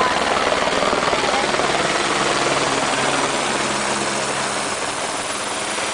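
Aérospatiale Écureuil single-engine turbine helicopter passing low overhead, its rotor and turbine running steadily and loud, easing off slightly in the last couple of seconds.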